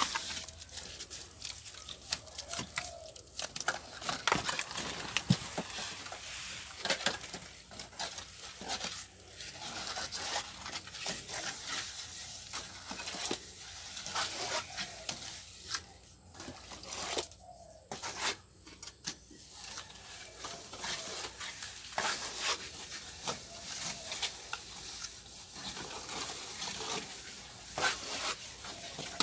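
Steel trowel working wet cement mortar: scraping it up from a mortar trough and slapping and spreading it onto a brick wall, a constant run of scrapes, clicks and wet slaps.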